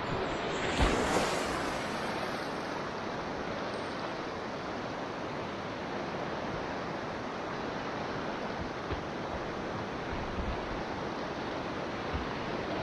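River water rushing around a kayak: a steady hiss of moving water, with a louder splash about a second in.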